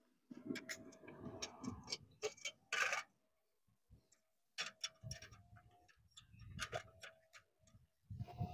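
Irregular clusters of light clicks and taps from small objects being handled on a table, with bursts of low wind rumble on the microphone.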